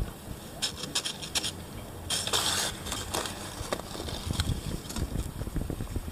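A cat's claws scratching and scrabbling in a narrow gap beside a plastic window frame, fishing out a dry leaf that crackles and rustles, loudest in one longer rustle about two seconds in.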